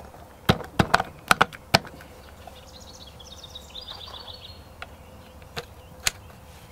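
Sharp clicks and knocks of the end cap being fitted onto the rear of a POF-5 pistol's receiver: four in the first two seconds and a few more later. Midway, a brief high chirping trill sounds in the background.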